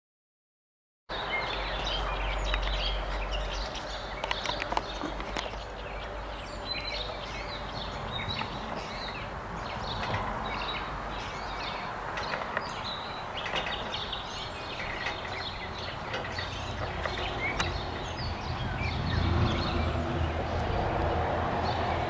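Outdoor ambience of many birds chirping and singing over a low steady rumble, starting after about a second of silence.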